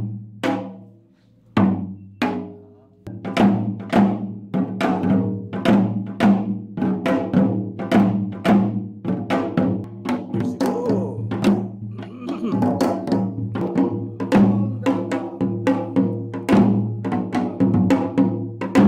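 Janggu, the Korean hourglass drum, struck with sticks: a few single strokes at first, then from about three seconds in a steady rhythm of several strokes a second.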